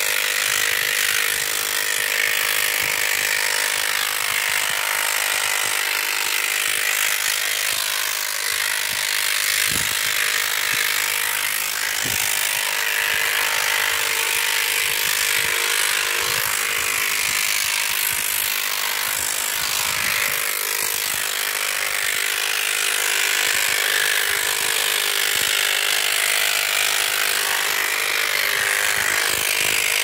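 Electric animal hair clipper running continuously, a steady buzz of constant pitch as its blades shear the hair on a horse's lower leg.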